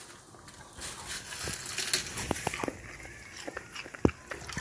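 Beagle chewing food with its mouth: a series of crunches and sharp mouth clicks, the loudest single click about four seconds in.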